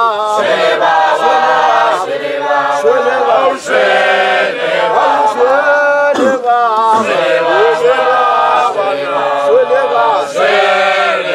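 A group of Shangaan performers singing a chant together, many voices at once.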